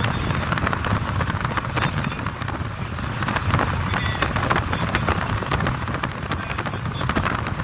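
Steady road and wind noise from inside a moving car: tyres rumbling on the road and air rushing past, with frequent small crackles.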